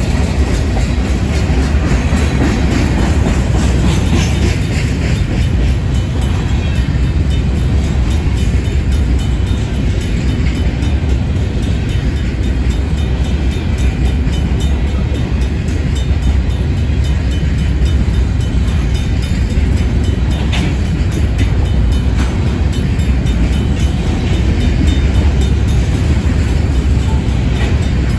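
Loaded covered hopper cars of a Union Pacific grain train rolling steadily past, their wheels rumbling and clicking over the rails. The crossing's Safetran mechanical bell rings throughout the activation.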